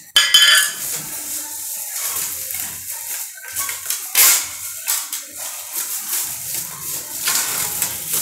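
Plastic wrapping crinkling and a stand fan's wire grille and metal pole clinking as the parts are unwrapped and handled, with a sharp knock about four seconds in.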